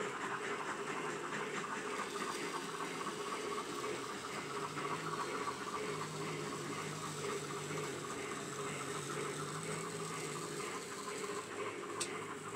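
N-scale model trains running on a DC-wired layout: a steady whirr of small motors and wheels on track, with faint rapid clicking and a single sharp click near the end.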